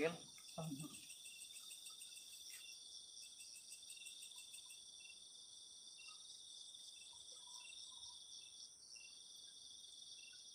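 Night insect chorus: crickets trilling steadily and high, with another insect giving short chirps about twice a second.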